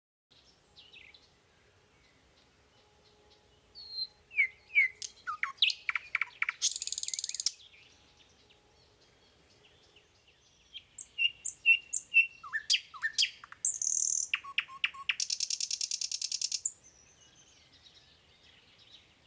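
Small bird chirping: quick high notes and short pitch glides that end in a fast buzzy trill. This happens in two bouts, the first about four seconds in and the second near the middle.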